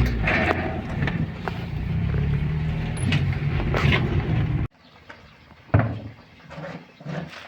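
A machine's engine running steadily with scattered knocks, cutting off suddenly about four and a half seconds in; afterwards only a few faint knocks.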